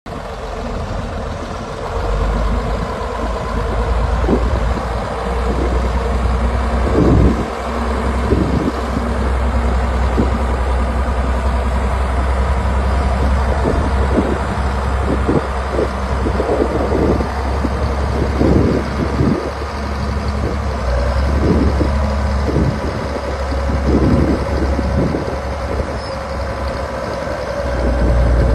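Diesel engine of an old Caterpillar motor grader running steadily under load as it creeps along, its blade scraping and spreading sand. Short thumps come at irregular intervals over the engine's low drone.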